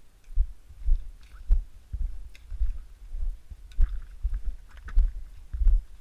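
Footsteps of a person walking, with low thumps about twice a second as the camera jostles at each step, and faint scuffing over them.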